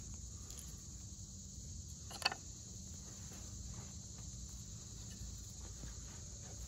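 Faint, steady outdoor insect chorus, a continuous high buzz, with a single sharp click about two seconds in.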